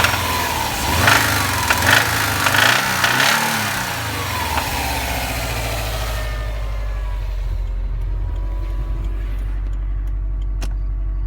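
2015 Subaru WRX STI's turbocharged 2.5-litre flat-four engine revved in several quick blips over the first few seconds, then settling to a steady idle, with one sharp click near the end. The owner says the engine has developed a knock.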